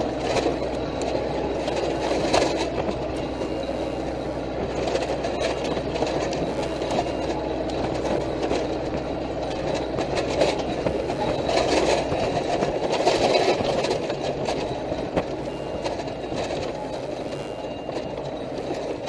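Military patrol vehicle driving over rough ground, heard from its open gun turret: steady engine and road rumble with continual rattling and clanking of the turret and the mounted gun. A low drone in the rumble drops away about twelve seconds in.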